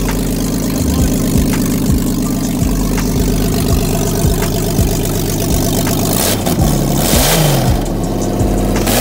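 Electronic house music with a steady kick-drum beat about twice a second under sustained synth tones, with two swooshing sweeps near the end.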